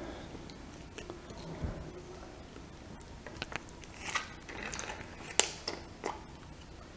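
Faint handling noises: scattered small clicks and crinkles, with a small cluster in the middle and the sharpest click about five and a half seconds in.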